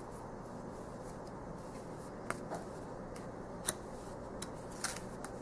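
Tarot cards being handled on a cloth-covered table: a few light clicks and taps as cards are slid and set down, over a steady low hiss.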